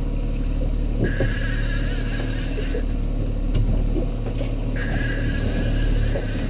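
Boat engine running steadily, with a higher tone that comes and goes every second or two.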